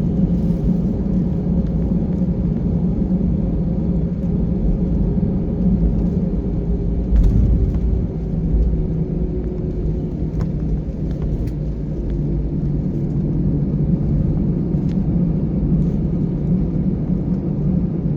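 Steady low rumble of an airliner's engines heard from inside the cabin, with a faint steady hum.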